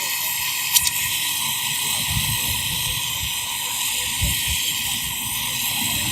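Gas brazing torch flame hissing steadily while copper pipe joints on a refrigerator compressor are brazed, with one short click a little under a second in.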